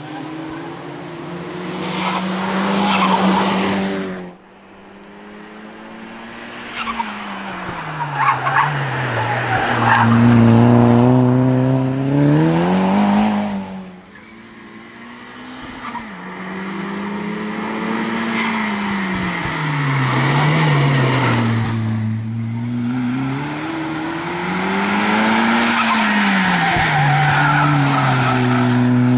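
Volkswagen Golf hatchback driven hard through tight bends: the engine note climbs and falls over and over as it accelerates, shifts and brakes, with tyres squealing in the corners. The sound breaks off abruptly a few times where shots are cut together.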